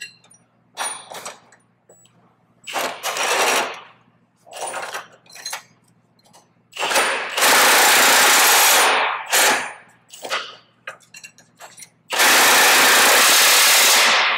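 Half-inch impact gun with a 1-1/8 socket tightening large bolts: several short bursts, then two long loud bursts of hammering as the bolts are driven tight.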